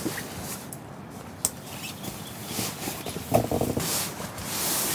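Folding camp bed-base frames being handled and clipped together: irregular rustling with a sharp click about one and a half seconds in and a louder knock a couple of seconds later.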